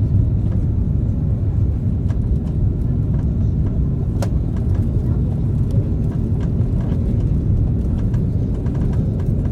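Steady low rumble of an Airbus A330 heard from inside the passenger cabin, with a single sharp click about four seconds in.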